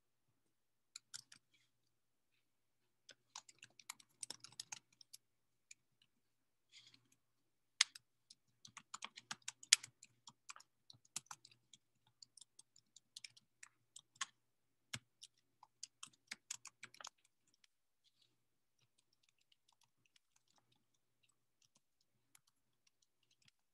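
Faint typing on a computer keyboard: irregular runs of key clicks that stop about 17 seconds in, leaving only a few stray ticks.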